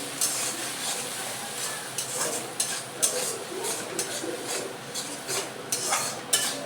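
Chicken in a sauce sizzling in a pan while a utensil stirs and scrapes it, with short scrapes about twice a second over a steady sizzle.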